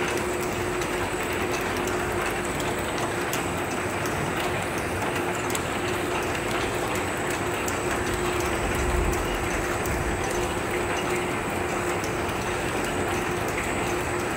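Bouillon cube pressing and paper-wrapping machines running: a steady mechanical clatter of gears and moving parts over a constant hum.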